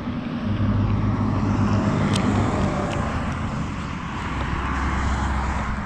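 A steady engine hum that drops in pitch about four seconds in, with a few faint clicks over it.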